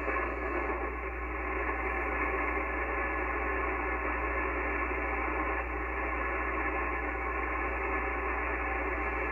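Icom IC-7300 HF transceiver's speaker giving out steady band noise while tuned to the 20-metre band: an even static hiss, cut off sharply above about 3 kHz, with a few faint steady tones from other signals in the passband and a low hum underneath.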